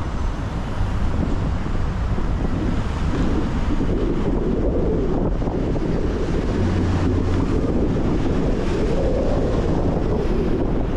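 Steady, loud low rushing noise of a storm: wind buffeting the microphone over a rumble of city traffic.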